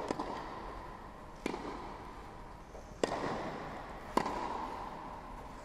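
Tennis balls struck by racquets in a baseline rally: a sharp pop about every one and a half seconds, each one echoing briefly around the empty stadium.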